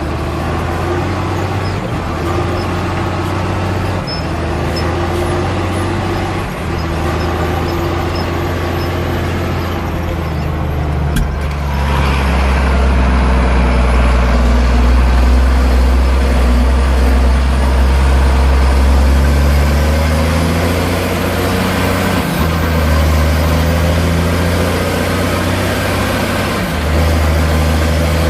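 Ford 8830 tractor's six-cylinder turbo diesel engine running steadily; about 12 seconds in a sharp knock is followed by the engine running louder and deeper for about eight seconds, then it settles back to its earlier note.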